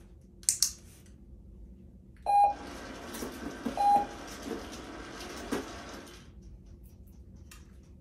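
A sharp double click, then two short electronic beeps about one and a half seconds apart. The beeps sit over a few seconds of steady rushing noise that stops near the end.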